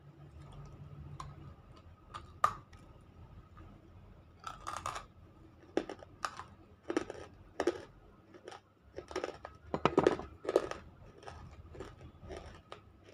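Crunching and chewing of unshaped, half-roasted nakumatt clay pieces. A string of sharp, irregular crunches starts about two seconds in and comes thickest through the middle.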